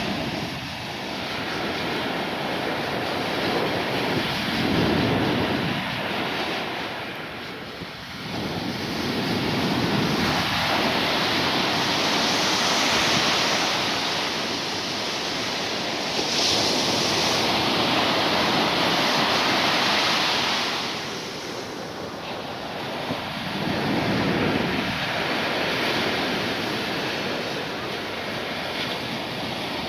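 Storm waves breaking and washing ashore in a continuous wash of surf that swells and ebbs, building to its loudest stretch for about ten seconds in the middle.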